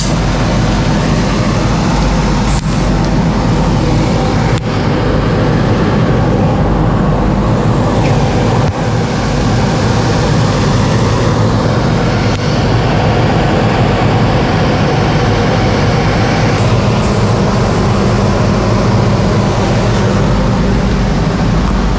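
TIG welding a fillet weld with filler rod on 3 mm stainless (chrome-nickel) steel: a steady hiss with a low hum underneath that stays at one level throughout, over the constant noise of the running welding equipment.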